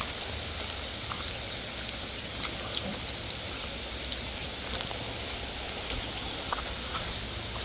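Heavy rain falling steadily, with scattered single drops ticking close by.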